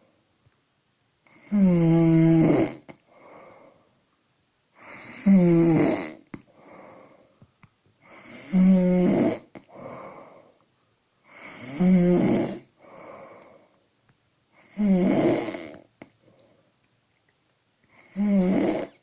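A woman snoring: six loud, pitched snores about every three and a half seconds, each followed by a softer, shorter breath sound.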